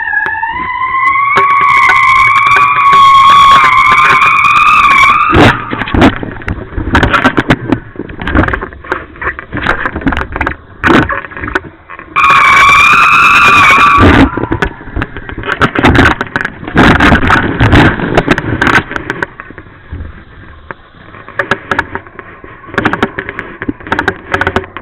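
Wind rushing over a board-mounted action camera's microphone, with a whistling tone that rises for the first few seconds, fades, and returns briefly in the middle. The kiteboard slaps and chatters on the water throughout.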